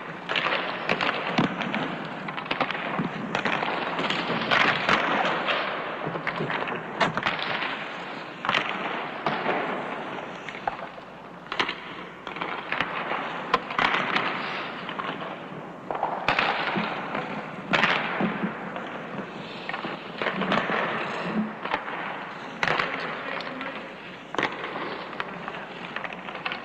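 Ice hockey shooting drill: sharp cracks of sticks striking pucks at irregular intervals, about one every second or two, over a steady noisy rink background.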